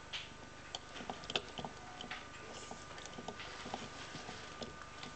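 Light, irregular clicks and taps from a small handmade kinetic object of wood and wire, with a rubber-band-driven wooden wheel, as it moves and is handled.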